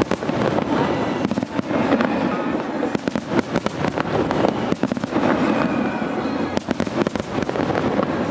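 Starmine fireworks barrage: many aerial shells bursting in quick succession, a dense, unbroken run of bangs and crackles.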